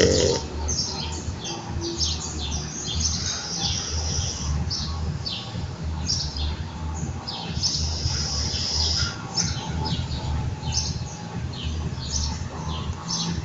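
Small birds chirping and twittering in quick, repeated high notes, over a steady low hum.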